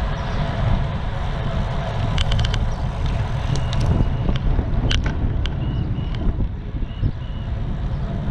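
Steady low rumble of street traffic. About two seconds in comes a quick run of clicks, then a single sharp click near the middle, and a few short high chirps in the second half.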